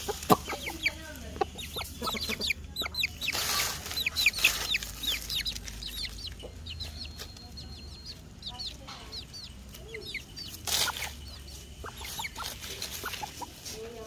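Chicks peeping in quick, short falling chirps while an adult chicken clucks, with a few brief rustles of dry leaves as they scratch and peck.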